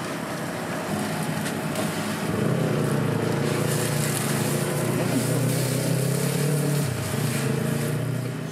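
Street noise with an engine running close by: a low hum that grows louder about two seconds in and eases off near the end.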